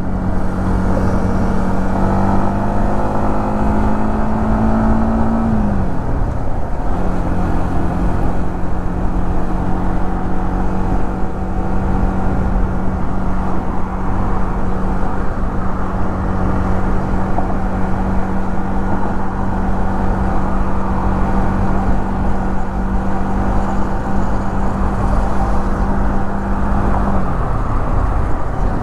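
Yamaha MT-15's 155 cc single-cylinder engine and exhaust under steady throttle while riding, with wind rumble on the microphone. The engine note dips briefly about six seconds in, then holds steady and falls away near the end.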